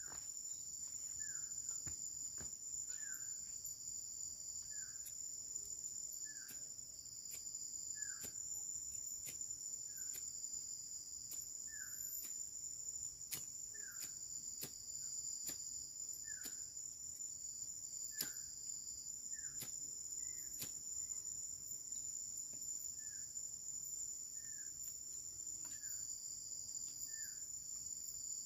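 Steady high-pitched insect chorus. A short falling call repeats about once a second over it, with scattered sharp clicks.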